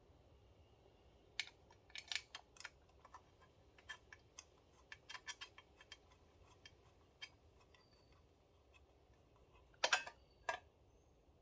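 Scattered light clicks and knocks of air cleaner kit parts being handled and fitted by hand, with a louder clatter about ten seconds in.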